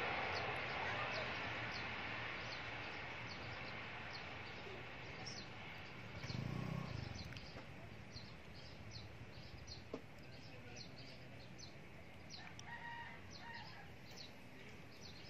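Distant twin-engine turboprop airliner on the runway, its engine noise fading steadily. Birds chirp over it again and again, and a rooster crows near the end.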